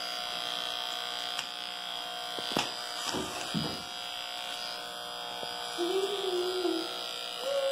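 Corded electric hair clipper with a comb guard running with a steady buzz as it trims hair at the back of the neck.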